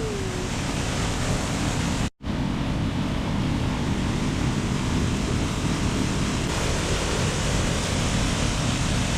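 Waterfall and rushing water making a steady, loud roar, cut off briefly about two seconds in.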